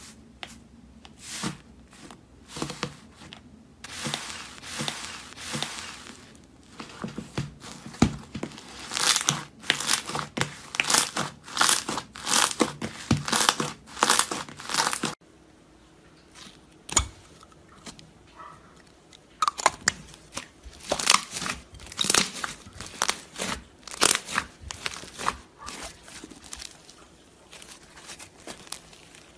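Slime being squeezed, poked and stretched by hand close to the microphone, giving rapid crackling, clicking and crinkling in bursts. The sound breaks off abruptly about halfway through and picks up again with a similar crackle.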